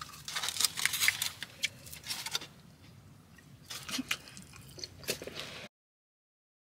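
Irregular crunching and crackling clicks, densest at first, easing off, then picking up again before the sound cuts off abruptly about two thirds of the way through.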